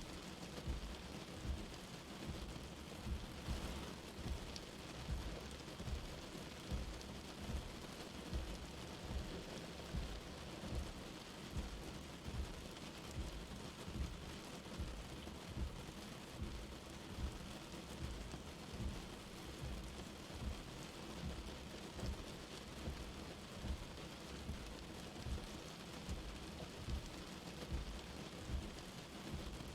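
Light rain falling steadily, with a soft low thud repeating about once a second.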